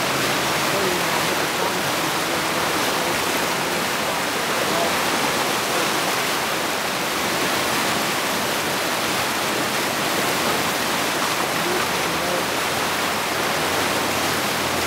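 Whitewater rapid rushing steadily, a river pouring over a rock ledge and churning into foaming waves.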